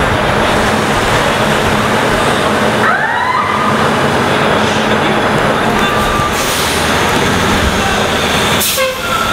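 Loud city-bus and street-traffic noise, with a short rising squeal about three seconds in.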